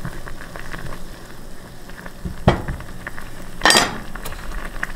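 Blueberries boiling and bubbling in a small saucepan, cooking down into a compote, while a silicone spatula stirs them with light knocks against the pan. One sharper knock about halfway through, and a brief louder clatter near the end.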